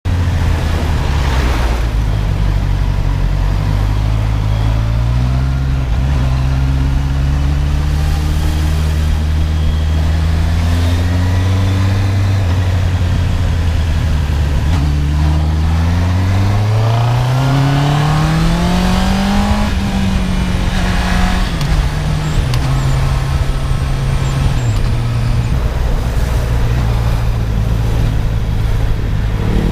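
Honda CB650R inline-four engine on its stock exhaust, under way: the engine note climbs in several stages for about twenty seconds, then drops back and holds a steady pitch.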